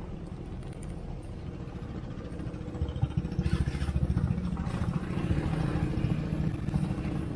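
Vespa scooters' single-cylinder engines running at low speed while creeping forward in a queue. The low throb gets louder and more pulsing about three seconds in.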